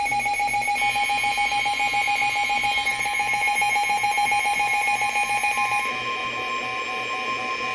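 Emergency Alert System alert tones: loud, steady electronic tones in several pitches with a fast flutter. A second, higher tone joins about a second in, and the lowest tone drops out about six seconds in.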